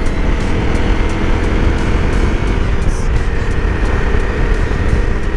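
Honda CRF250 Rally's single-cylinder engine running steadily while the bike cruises, under a heavy, even low rumble of riding noise.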